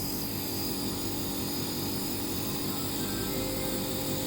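Nebulizer's electric compressor running with a steady, even hum.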